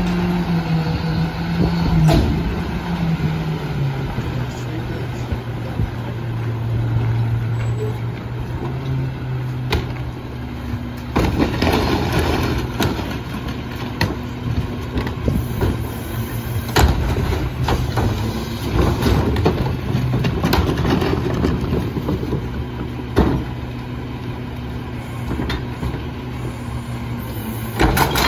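Rear-loader garbage truck's diesel engine running at a raised speed, dropping to a lower steady speed about four seconds in. Irregular clatter and knocks from carts and trash being loaded, and a cart tipper lifting a cart to dump it near the end.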